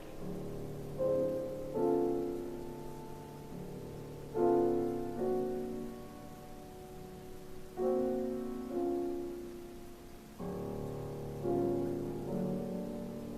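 Solo piano playing slow chords, each struck and left to ring and fade before the next, about one every one to three seconds.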